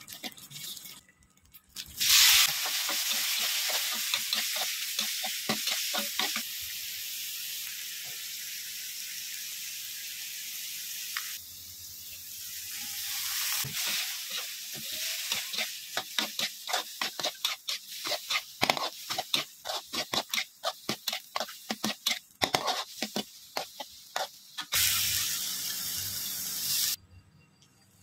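Stir-frying in a hot metal wok: a sudden loud sizzle about two seconds in that hisses steadily for several seconds. Then a metal spatula scrapes and clicks rapidly against the wok as apple snails in chili paste are tossed, with a second burst of sizzling near the end.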